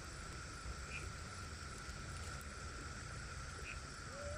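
Faint steady outdoor background: a low rumble under a thin, steady high tone, with a few faint short chirps.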